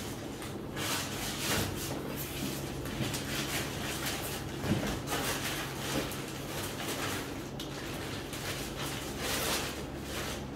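Plastic packaging rustling and crinkling as a parcel is unwrapped and a bagged garment is pulled out, in irregular handfuls of rustles.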